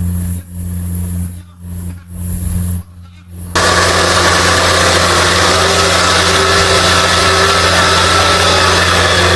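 Radio-controlled truck running with a steady low hum that cuts out briefly several times. About a third of the way in, a loud steady hiss starts suddenly and holds over the hum.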